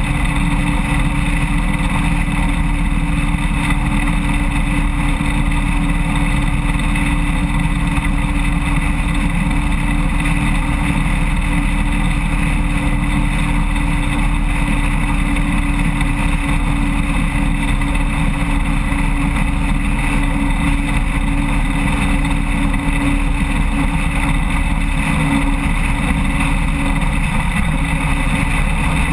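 Tyres running over an open steel grid bridge deck, heard as a loud, steady hum mixed with the 1993 Road King motorcycle's engine and wind noise, with no change in speed.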